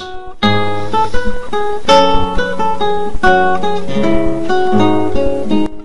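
Instrumental background music: a melody of quickly changing plucked notes. It starts about half a second in and stops just before the end.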